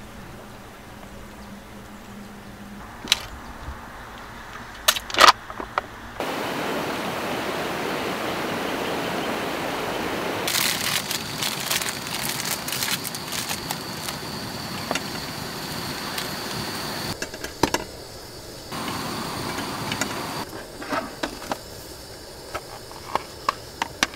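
Faint rain hiss and a few sharp clicks, then from about six seconds a steady, stronger hiss from a lit canister gas stove burner under a frying pan. Light clicks and knocks of cookware are scattered over it as bread toasts in the pan.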